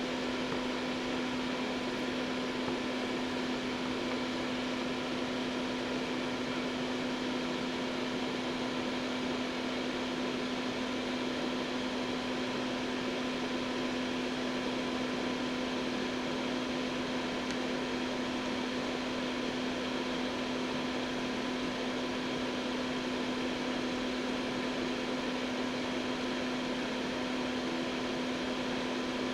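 A small electric fan running steadily: a constant hum over an even airy hiss.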